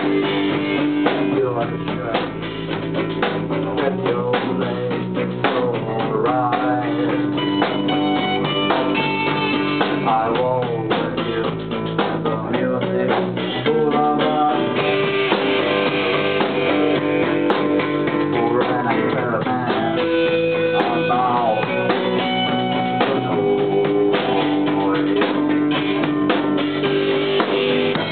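Music with guitar over a drum kit, a steady full band sound with no pauses.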